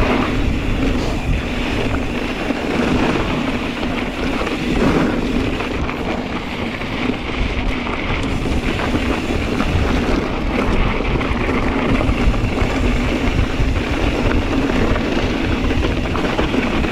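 Steady wind rush on the camera microphone over the rumble of a Kona Process 134 mountain bike rolling along a dirt trail.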